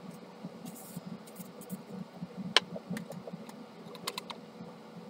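Small clicks and taps of plastic printer-cartridge parts and a metal roller being handled and set down on a work bench, the sharpest click about two and a half seconds in and a few lighter ones later.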